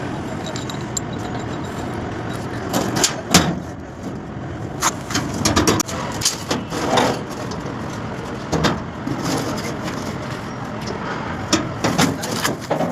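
Irregular sharp knocks and clatter, a few close together, over a steady background noise.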